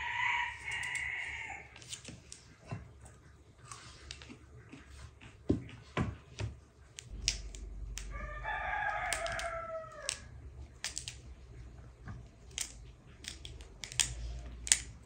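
A rooster crowing twice, each crow about two seconds long, once at the start and again about eight seconds in. Between and under the crows come short crisp snaps of cauliflower florets being broken apart by hand.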